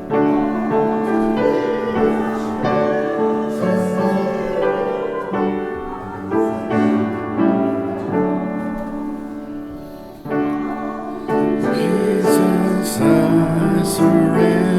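A hymn sung with piano accompaniment, in slow sustained chords. There is a brief pause between lines about ten seconds in.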